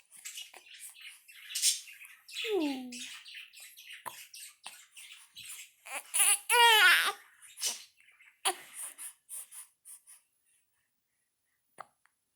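A baby vocalizing: a short falling whine a couple of seconds in, then a loud high squeal about halfway through, with short breathy and noisy sounds around them that die away near the end.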